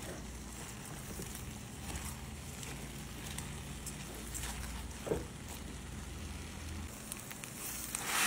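A spatula stirring raw rice with vegetables and pork in a hot oiled nonstick pan, with faint sizzling and scraping while the rice toasts, and one louder knock about five seconds in. Near the end, water starts pouring into the hot pan and the sound swells into a loud hiss.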